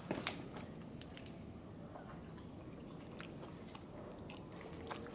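Night insects chirring in a steady, high-pitched drone.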